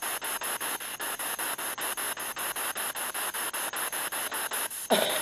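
Spirit box sweeping through radio stations, giving a steady static that chops on and off about six times a second. Near the end a brief, louder fragment of voice-like radio sound breaks through the static.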